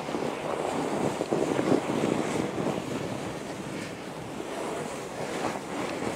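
Fat bike's wide, low-pressure tires rolling through soft fresh snow, a steady noise with wind on the microphone.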